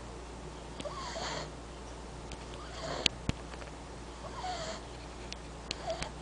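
French bulldog puppy snoring: a raspy breath about every second and a half, with small whistling squeaks in the breathing. A few sharp clicks are heard, the loudest about three seconds in.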